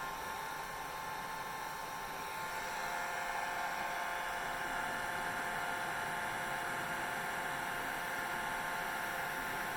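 Hair dryer running with a steady whir and hiss, growing a little louder about two and a half seconds in.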